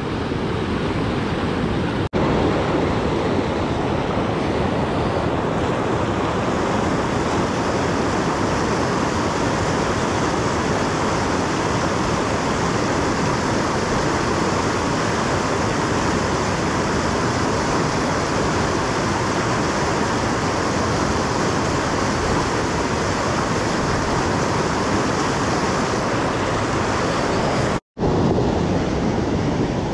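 A steady, loud rushing noise with no rhythm or pitch. It drops out briefly about two seconds in and again near the end.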